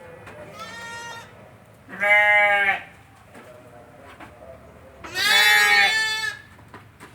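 Goats bleating: three calls, the first fainter and short, the next two loud, the last lasting a little over a second.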